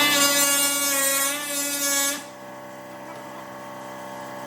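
Small handheld power tool's motor whining at high speed, then cutting off abruptly about two seconds in.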